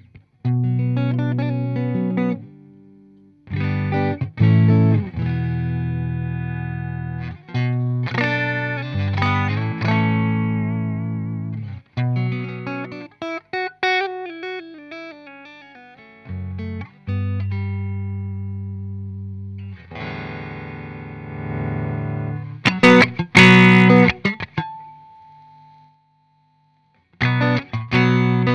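Electric guitar played through a Fender '65 Deluxe Reverb amplifier, miked with a Shure SM58: ringing chords and short note runs, with brief pauses between phrases. The loudest part is a few hard, bright strummed chords a little before the end, followed by a short silence and then a fresh burst of quick picking.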